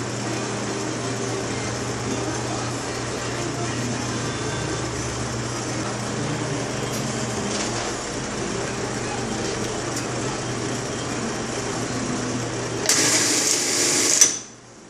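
Industrial sewing machine running while a bow tie is stitched: a steady motor hum throughout. Near the end there is a louder rushing noise for over a second, after which the sound drops away abruptly.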